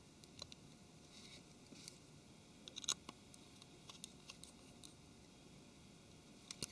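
Faint, scattered small clicks and scrapes of a precision screwdriver turning a tiny screw into a phone's main board, with a small cluster of ticks about three seconds in; otherwise near silence.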